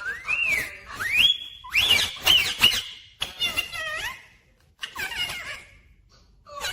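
Ringneck parrot whistling and chattering: two whistled glides at the start, one arching up and down and one rising and then held, followed by a run of short chirpy calls, with a brief pause and a quieter stretch near the end.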